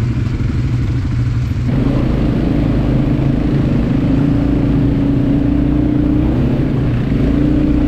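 ATV (quad bike) engine running under throttle on a dirt trail. About two seconds in, the engine note steps up and climbs slowly, dips briefly, then picks up again near the end.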